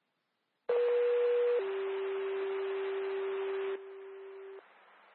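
Two-tone sequential fire-department page over scanner radio: a higher tone for about a second, then a lower tone held for about three seconds, over radio hiss. It is the alert tone that calls out a fire department ahead of a dispatch.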